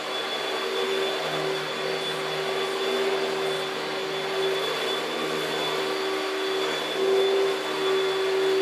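Panasonic Jet-Flo MC-6217 upright vacuum cleaner running steadily: a motor hum with a thin high whine over the rush of air, briefly louder a couple of times near the end.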